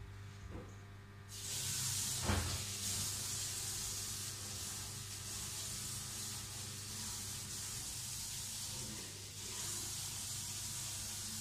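Kitchen tap turned on about a second in, water running steadily into the sink, with a single knock shortly after.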